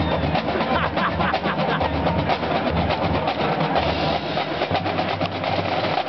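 Marching drumline playing a fast cadence: snare drums rattling off rapid strokes over the low beats of Yamaha marching bass drums.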